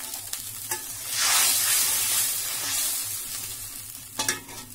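Boiling water with oil and spices in a steel kadai being stirred as turmeric and salt go in. It hisses and bubbles, swelling loud about a second in and slowly fading. A utensil knocks against the steel once near the start and once near the end.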